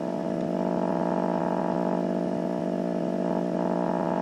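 Steady electrical buzz with a ladder of even overtones from the tube AM/FM radio on the bench, sounding while its FM IF stage is being aligned with a swept test signal.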